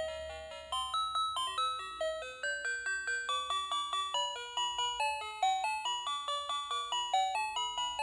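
Battery-operated light-up toy tricycle's built-in sound chip playing a quick electronic tune, one short plinking note after another.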